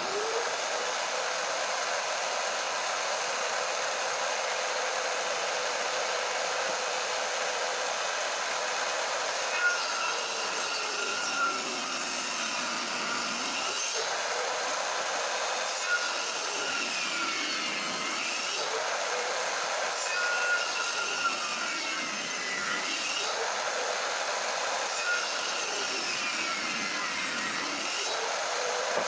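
Bosch table saw running steadily with a high whine. From about ten seconds in, its pitch sags and recovers four times as the blade cuts through wood under load.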